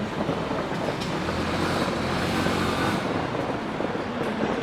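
Steady rumble of distant fireworks, the bursts blurring into one continuous sound with no separate bangs standing out.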